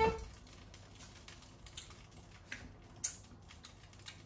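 Faint, irregular small clicks and taps from handling kitchen utensils, with one sharper click about three seconds in.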